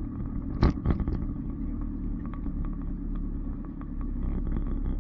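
Off-road 4x4 vehicle driving with a steady low rumble, and one sharp knock a little under a second in.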